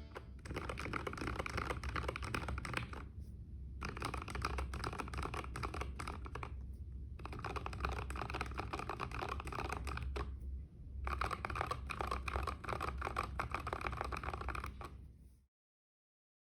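Typing on a mechanical keyboard fitted with Gateron Milky Yellow linear switches, not yet lubed: rapid key clacks in four runs with short pauses between, stopping abruptly near the end.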